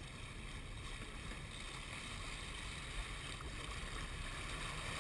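Steady wind and water noise aboard a sport-fishing boat, with a low rumble underneath.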